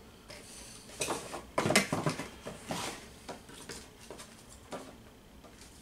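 Rummaging in a cardboard packaging box: an irregular string of knocks, taps and rustles as things inside are handled, busiest about one to two seconds in.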